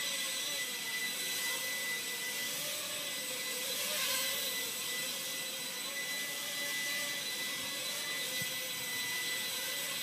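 Walkera QR Ladybird micro quadcopter in flight, its four small motors and propellers giving a steady high whine whose pitch wavers slightly as the throttle shifts.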